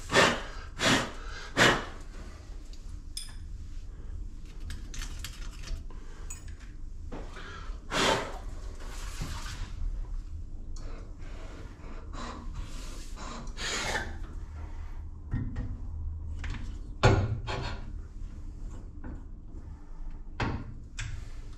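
Metal clinks and knocks of tools and parts being handled at a valve-seat cutting machine, a handful of separate sharp strikes, the loudest about seventeen seconds in, over a low steady hum.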